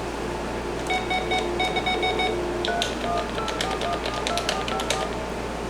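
Touch-tone telephone keypad being dialed: a run of short electronic beeps, then a quicker string of about a dozen key presses, each a brief two-note tone with a button click.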